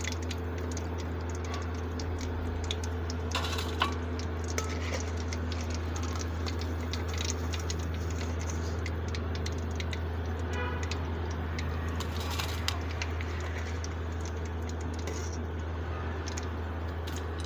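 Hot oil crackling as chicken cheese balls finish deep-frying, with many small scattered pops and clicks over a steady hiss and a constant low hum.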